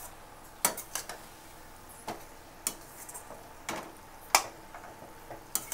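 A metal spatula knocking and scraping against a stainless steel pan while stirring thick chicken masala: irregular clicks, the loudest about four seconds in.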